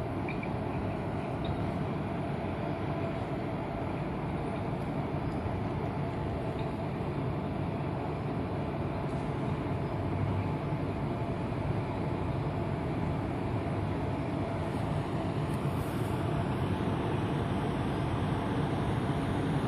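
Indian Railways passenger train running on the track: a steady rumble that grows slightly louder from about halfway.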